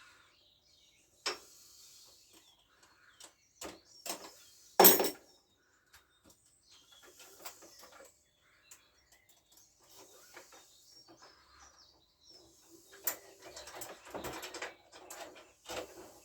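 Hand work on a scooter being stripped for engine removal: scattered clicks and knocks of tools and parts, one loud knock about five seconds in, and a stretch of rattling and rustling near the end.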